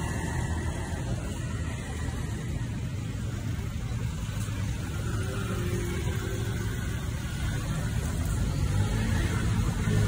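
An engine running steadily with a low hum, getting a little louder near the end.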